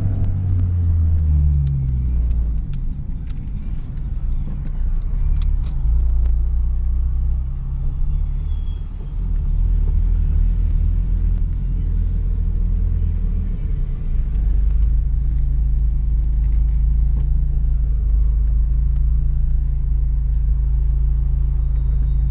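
Honda Fit engine and road noise heard inside the cabin while driving, geared short by a 4.928 final drive. The engine note rises about a second in, shifts pitch a few times as it changes speed, then settles into a steady low drone for the last several seconds.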